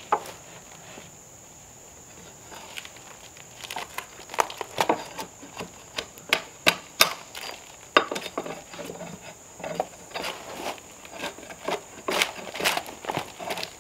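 Bark being pried and scraped off a pine slab with a hand tool: irregular sharp cracks and scrapes as the bark splits away, starting a few seconds in and coming quickly after that.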